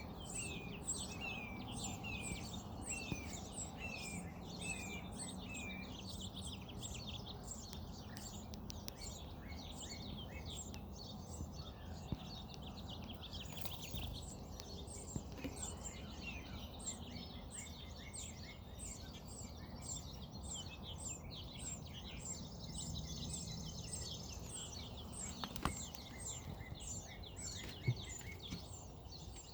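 Birds chirping continuously, many short high chirps and calls overlapping, with a run of repeated down-slurred notes about two a second in the first few seconds, over a steady low background rumble.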